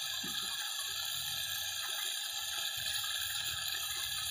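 Water jetting steadily out of a pipe onto the grass, a continuous hiss with faint spattering underneath.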